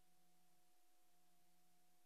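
Near silence: faint tape hiss with a faint steady hum.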